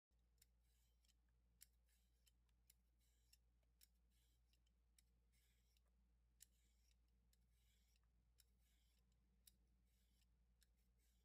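A vegetable peeler scraping strips of skin off a raw chayote squash: short, faint scraping strokes about once a second, many ending in a sharp click.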